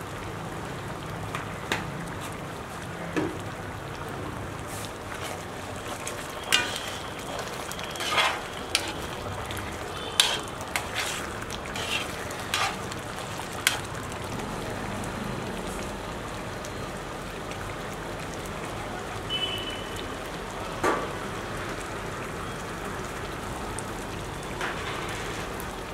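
Thick curry bubbling steadily in an iron kadai over a gas flame, a constant hiss. A steel spoon scrapes and clinks against the pan as it is stirred, mostly in the first half.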